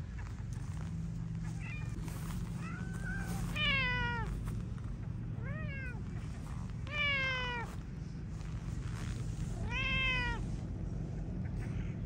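A cat meowing about four times, each meow rising and then falling in pitch, over a steady low background rumble.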